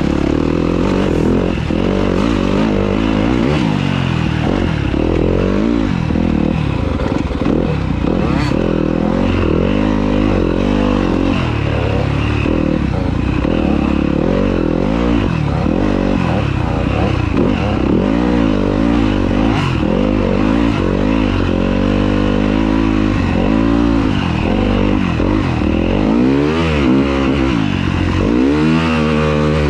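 Yamaha YZ250F single-cylinder four-stroke dirt-bike engine being ridden, heard up close from the bike itself, its pitch rising and falling again and again as the throttle is opened and closed through the trail. Light clattering from the chassis over bumps comes and goes.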